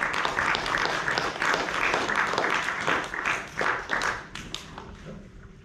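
Congregation applauding, dense clapping that thins to a few scattered claps and dies away near the end.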